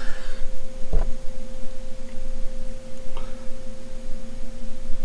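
A steady hum made of two constant pitched tones, one low and one higher, with a single light knock about a second in.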